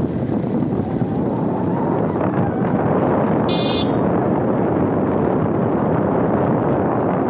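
Steady rush of wind on the microphone mixed with engine and tyre noise from a moving vehicle. About three and a half seconds in, a brief high-pitched beep sounds for under half a second.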